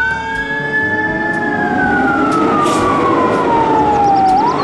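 Fire engine driving with its siren wailing: the tone holds high, slowly falls over about four seconds, then rises again near the end, over the steady rumble of the truck.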